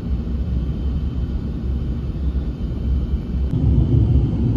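Steady low rumble of a car on the move, road and engine noise. About three and a half seconds in it changes abruptly to a louder, deeper rumble.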